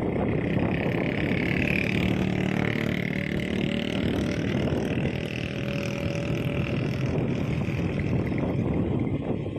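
Heavy diesel engine running steadily, with a high whine that rises and falls over it.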